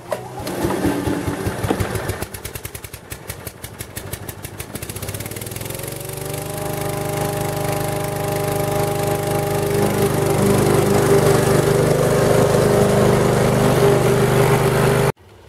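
Petrol walk-behind rotary lawn mower pull-started: the engine catches within the first couple of seconds and fires unevenly, then settles into a steady run that grows gradually louder. The sound cuts off suddenly near the end.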